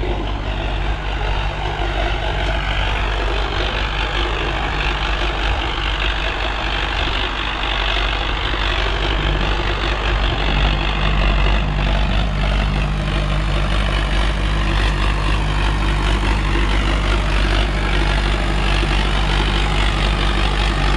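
Sonalika DI-750 III tractor's diesel engine running steadily under load as it pulls a disc harrow through the soil, getting a little louder as it comes close.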